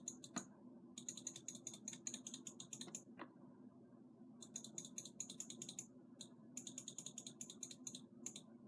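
Faint typing on a computer keyboard: quick runs of keystrokes in three main bursts, with short pauses between them.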